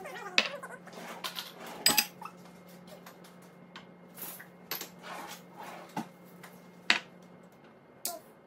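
Ceramic bowls, a serving spoon and a glass clinking and knocking as they are set down and handled on a stone countertop: several sharp separate clinks with softer handling noise between them, over a steady low hum that stops shortly before the end.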